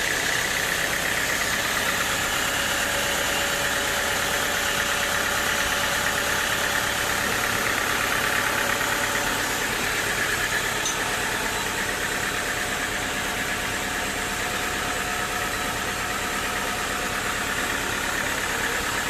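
Sawmill machinery running steadily: a continuous engine-like drone under a dense hiss, with no separate strikes or cuts.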